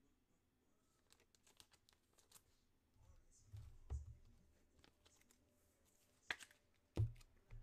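Trading cards and pack wrappers being handled on a desk: faint rustling and light clicks, with a few soft thumps, a sharp click about six seconds in, and a louder thump just after it.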